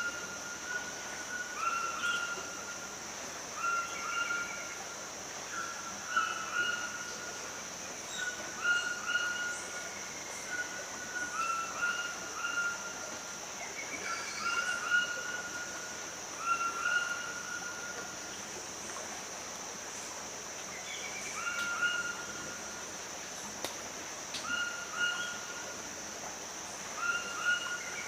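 Forest ambience: birds giving short whistled calls over and over, a note every second or two with the odd short trill, and a lull of a few seconds past the middle. A steady high-pitched buzz runs underneath.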